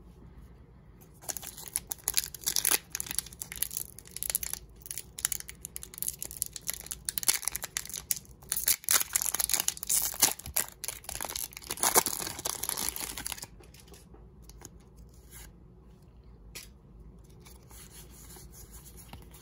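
A foil Pokémon booster pack wrapper being torn open and crinkled: a long run of sharp, irregular crackling that starts about a second in and stops well before the end.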